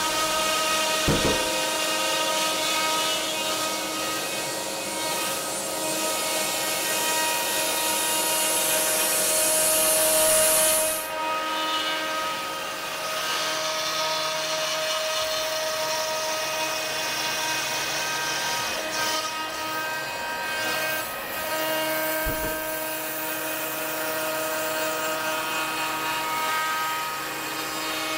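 Yeti Smartbench CNC router spindle cutting dados into a plywood cabinet side, with dust extraction running: a steady whine of several pitches over hiss. The hiss at the top of the sound drops away suddenly about eleven seconds in.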